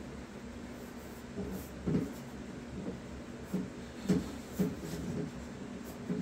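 A few soft knocks and rubs as a 22-gauge steel flag panel is pressed down, shifted and lifted on a wooden box, the clearest about two seconds in and around four seconds in, over a steady low hum.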